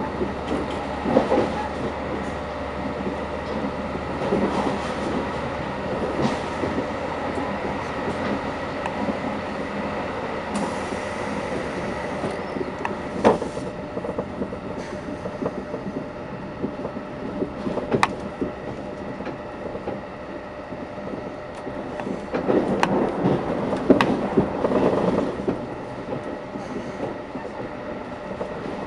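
Moving train heard from inside the carriage: a steady rumble and hum of wheels running on the rails, with a few sharp clacks and a louder swell of rumble a little past the middle.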